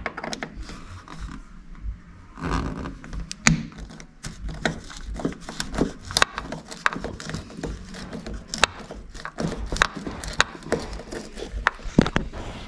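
Irregular clicks and scrapes of a hand tool working a rusted T20 Torx screw loose from the bottom of a car door.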